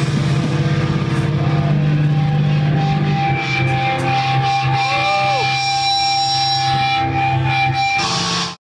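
Live hardcore band with distorted electric guitars and bass letting a low chord ring, a thin steady high tone held over it and a couple of bent notes. It cuts off suddenly near the end.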